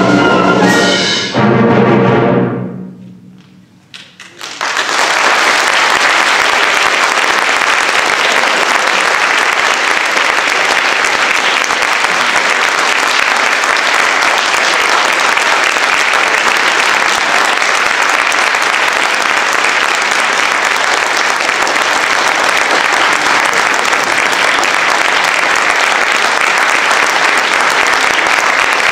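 Concert wind band of brass, woodwinds and percussion plays its last notes, cutting off about two seconds in and fading briefly in the hall. After a short lull an audience applauds steadily for the rest.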